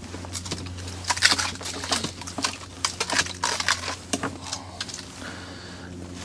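A quick, irregular run of sharp taps and clicks lasting about four seconds, then easing off. A steady low hum runs underneath.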